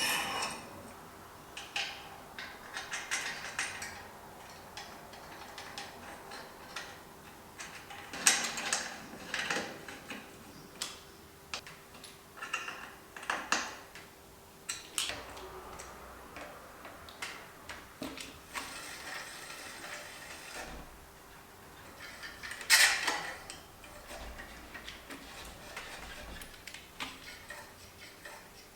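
Bicycle parts and hand tools being handled during assembly: irregular metal clicks, clatters and short scrapes, with a louder knock about eight seconds in and another about twenty-three seconds in. A faint steady hum runs underneath.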